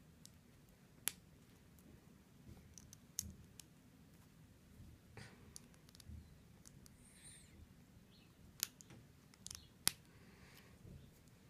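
Lego plastic pieces clicking as they are pressed and snapped together by hand: scattered faint, sharp clicks over several seconds, with two of the louder ones about a second apart near the end.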